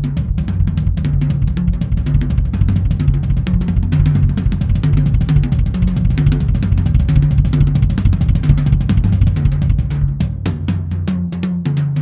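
Tama Starclassic Walnut/Birch drum kit played with sticks: rapid, continuous strokes around the snare and toms over the bass drum. The bass drum drops out about ten seconds in while the hand strokes carry on.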